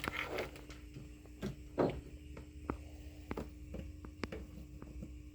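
Light clicks and knocks of a power plug and cord being handled and pulled from a wall socket, about six over five seconds, the loudest a little under two seconds in, over a steady low electrical hum.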